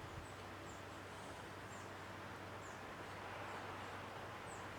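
Quiet workshop room tone: a faint steady hiss with a low hum, and faint, short, high chirps about once a second.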